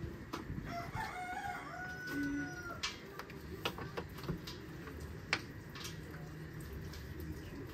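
A rooster crowing once, a call of about two seconds, over scattered sharp clicks and knocks, the loudest a little after five seconds in.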